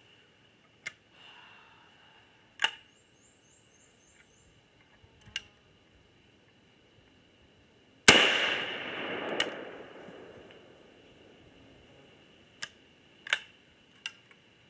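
Spent casings and shells being picked up, giving short sharp clicks and clinks at scattered moments. About eight seconds in comes one loud sharp crack with a long fading tail, the loudest sound present.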